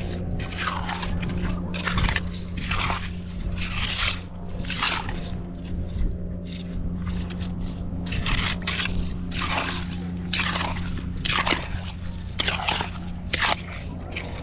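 A hand rake or digging tool scraping and crunching through wet sand and shells on a tidal flat, digging for clams, with strokes about once a second. A steady low hum runs underneath.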